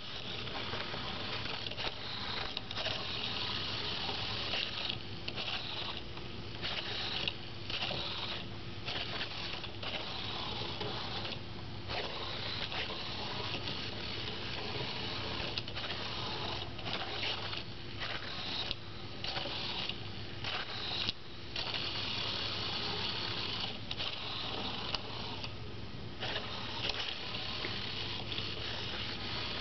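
Pololu 3pi robot's small gearmotors whirring with a high, gritty whine as it follows the line, cutting out briefly again and again as the robot stops and restarts its wheels.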